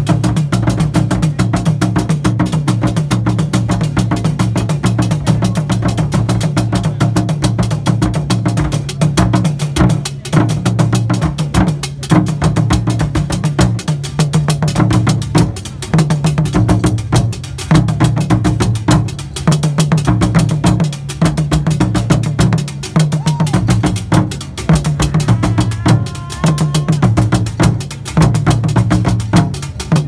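Akan fontomfrom drum ensemble: the tall fontomfrom drums and a pair of smaller drums struck with curved wooden sticks in a fast, dense rhythm with a deep, heavy bottom. After about ten seconds the playing falls into repeated phrases with short breaks every second or two.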